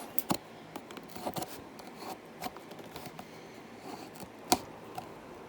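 Small scratching, scraping and clicking sounds of the tape seal being picked and pried at on a cardboard box, with one sharp click about a second before the end.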